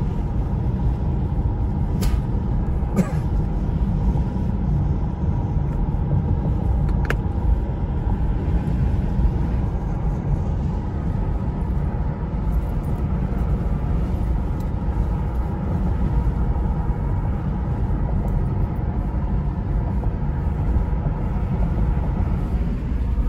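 Car driving on a paved road, heard from inside the cabin: a steady low rumble of tyres and engine, with a few faint clicks about two, three and seven seconds in.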